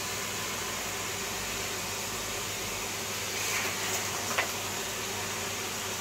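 Numatic James vacuum cleaner running with a steady hum and rush of air. About three and a half seconds in the suction hiss rises briefly, and a sharp click stands out a little later.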